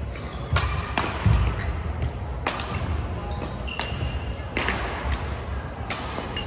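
Badminton rackets hitting a shuttlecock in a doubles rally: sharp pops every second or two, with players' footsteps thudding on a wooden gym floor.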